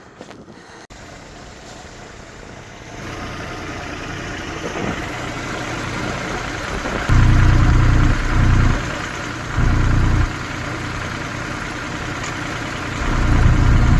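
Engine of a snow-plowing vehicle running, growing louder from about three seconds in, with three short loud low surges in the second half.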